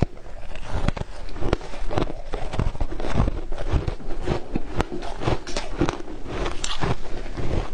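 A mouthful of crushed ice being chewed and crunched close to a clip-on microphone: a dense, irregular run of sharp crackles and crunches.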